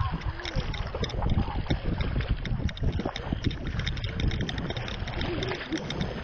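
Lake water sloshing and lapping against a camera held right at the surface, with many small splashes over a steady low rumble of water and wind on the microphone.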